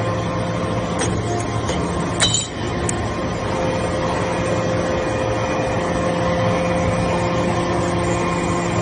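Shaving baler press running with a steady mechanical hum, and a sharp metallic clink about two seconds in, with fainter clicks around it.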